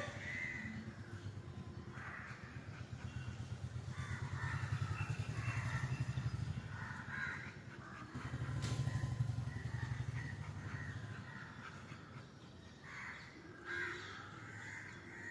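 Birds calling on and off, over a low rippling rumble that swells twice, about three and about eight and a half seconds in, each time lasting a few seconds.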